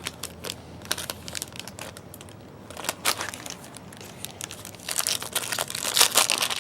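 Trading cards and foil pack wrappers being handled: crinkling and rustling, sparse in the middle and busier near the end.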